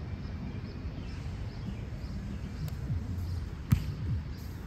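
Low, steady wind rumble on the microphone, with one sharp slap of a hand striking a beach volleyball about three-quarters of the way through.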